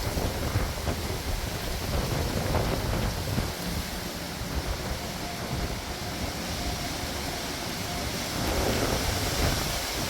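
Storm wind gusting against the microphone: a steady rushing noise with an uneven low rumble.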